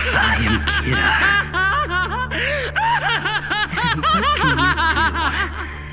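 A man's maniacal laughing in quick repeated bursts of short 'ha' syllables over a steady low music drone.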